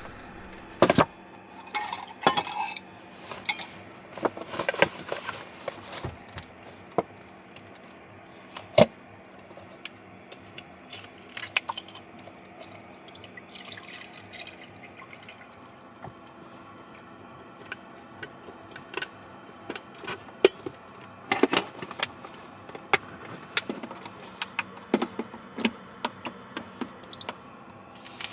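Scattered clinks, taps and knocks of dishes and cookware being handled, with short stretches of hissing or splashing between them.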